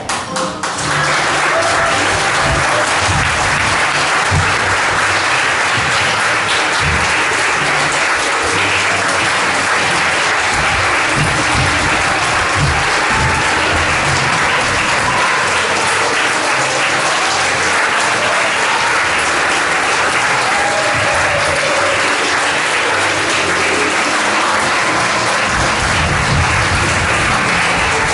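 Audience applauding, a long steady ovation that swells in just as the singing ends and carries on without let-up.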